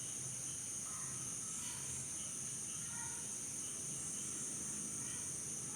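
Steady high-pitched chorus of night insects, with a few faint short chirps in the background.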